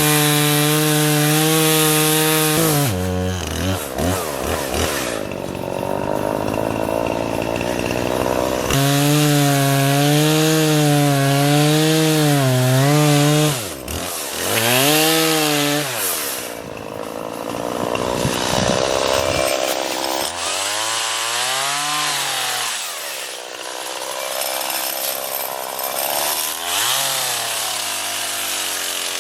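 Two-stroke chainsaw cutting wood, its engine speed dipping under load in the cuts and rising and falling sharply as the throttle is revved and released between cuts.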